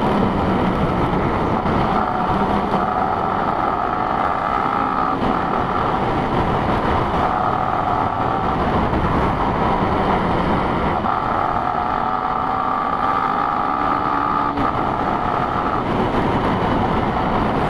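Riding a Yamaha Sniper 150 underbone motorcycle: its engine runs steadily under a constant rush of road and wind noise, with a whine that drifts slowly up and down in pitch.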